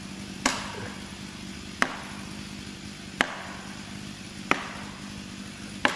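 Five sharp strikes into the trunk of a large tree being felled, evenly spaced about one every 1.4 seconds, as a wedge is driven into the felling cut.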